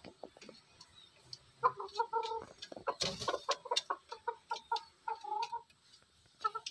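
Junglefowl clucking, a bantam × Sumatran red junglefowl cross rooster with a red junglefowl hen: a run of short, repeated clucks starting about one and a half seconds in, with a brief noisy rustle about three seconds in.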